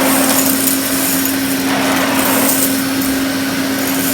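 Hoover Constellation 843 canister vacuum running with a steady motor hum, its suction hiss swelling and easing every couple of seconds as it is worked over the floor.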